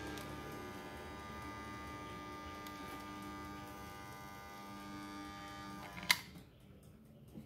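A steady electrical buzz made of many even tones. About six seconds in it is cut off by a sharp click, leaving it much quieter until near the end.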